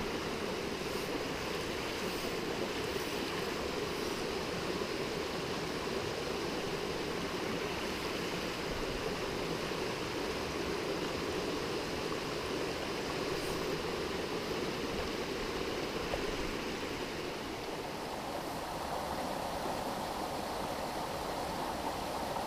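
Small mountain stream running over rocks and gravel: a steady rush of water, shifting a little higher in pitch near the end.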